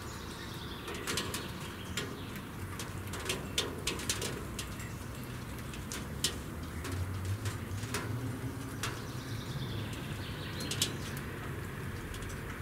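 Birds calling: pigeons cooing low, with many short, sharp chirps from small birds scattered throughout.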